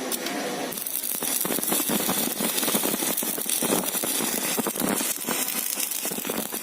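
Stick (MMA) welding arc crackling and sizzling as a 3.2 mm electrode burns, starting less than a second in and then running steadily. The arc is fed by a Shikhar MMA200H inverter welder at about 200 amps, which shows the repaired machine holding a full-power arc.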